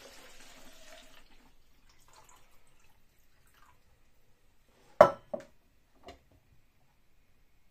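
Water poured from a metal jug into the plastic water tank of an Ambiano pod coffee machine, fading out about a second in. About five seconds in, a sharp clack and two lighter knocks as the lid is put on the tank.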